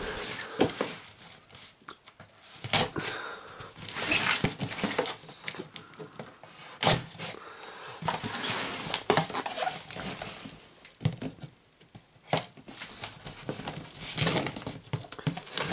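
Folding pocket knife slitting packing tape along the seams of a cardboard box: irregular scraping, rasping strokes with the tape and cardboard rustling, and a few sharp clicks.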